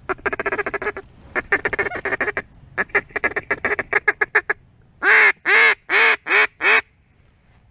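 Hand-blown duck call: three runs of rapid feeding chatter, then five loud, drawn-out quacks.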